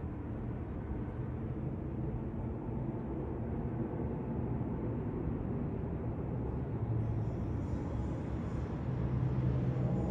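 Jet engine rumble of a Boeing 787-9 airliner overhead, growing steadily louder as it nears. A low hum comes in about seven seconds in and strengthens near the end.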